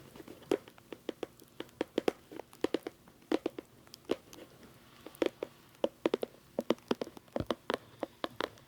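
A rapid, irregular run of sharp, close-up clicks and taps, several a second, made as ASMR trigger sounds right at the microphone.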